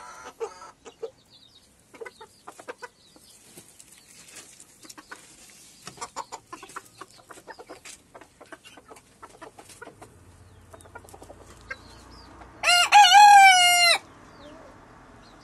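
Ko Shamo rooster crowing once near the end, a short crow of just over a second and the loudest sound here. Before it, scattered soft clucks and scratching in the dirt of the pen.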